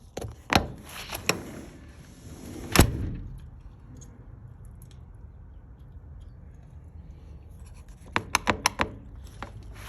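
Vinyl pool-fence gate and its self-latching hardware: a few metallic clicks and rattles, one sharp clank about three seconds in, then a quick run of clicks near the end.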